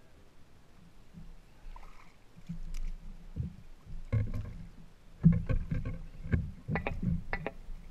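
Knocks, bumps and clicks of fishing gear being handled in a kayak: sparse at first, then coming thick from about four seconds in.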